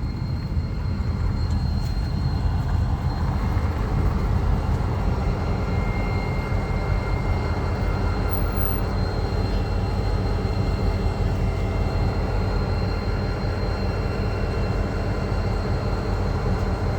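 Diesel yard locomotives running, a steady low rumble with a faint, steady high whine over it.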